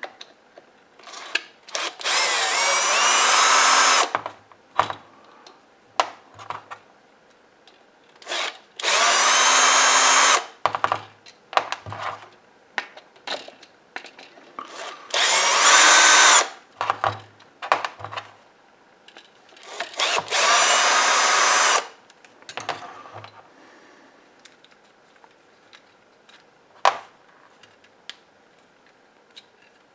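Cordless drill/driver backing out the housing screws of a car's intake manifold flap actuator. It runs in four bursts of about two seconds each, with sharp clicks and knocks of the screws and metal housing being handled between the runs.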